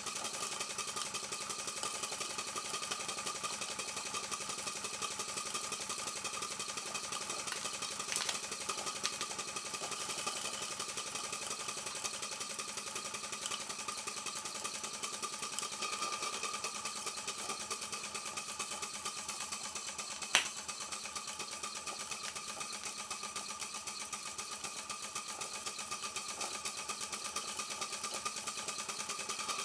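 Markie Scenic Showman's live-steam model engine, a single-cylinder gas-fired steam engine, running steadily on the bench with a fast, even beat. A single sharp click comes about twenty seconds in.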